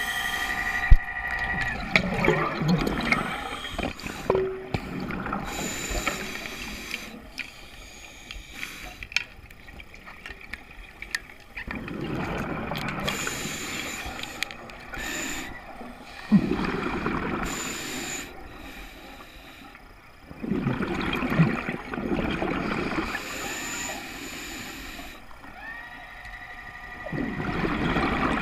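Scuba diver breathing through a regulator underwater: rough bursts of exhaled bubbles every few seconds, with quieter inhalations between. A steady whistling tone sounds briefly near the start and again near the end.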